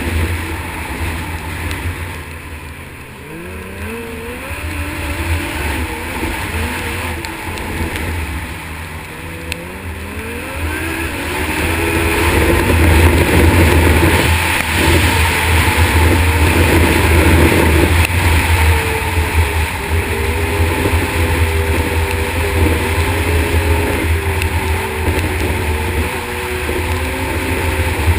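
Yamaha snowmobile engine revving up and easing off several times, then running louder and steadier at speed for the second half.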